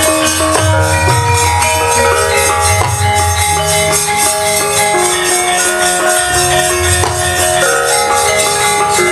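Javanese gamelan playing for a wayang kulit: metallophones ring out a moving melody of held notes over low drum strokes, with a rapid, steady metallic jingling on top.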